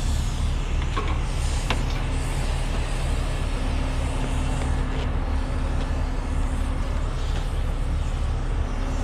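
Heavy truck engine idling steadily, a low, even rumble.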